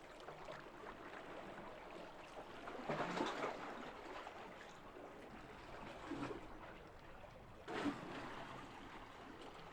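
Small lake waves lapping and washing at the shore, faint and steady, with two louder washes about three seconds in and near the end.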